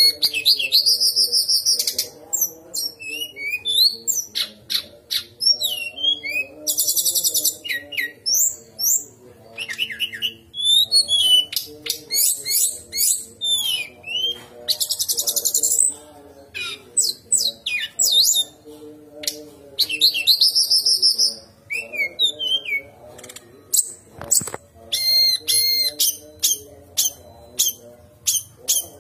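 Brown-chested jungle flycatcher singing: a long run of fast, varied whistled phrases and trills, with quick rising and falling notes, in bursts of one to two seconds with short gaps between.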